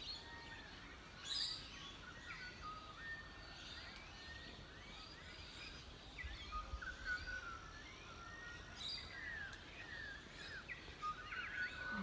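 Dawn chorus of several birds: short chirps and whistled notes, many sliding up or down in pitch, overlapping and fairly faint.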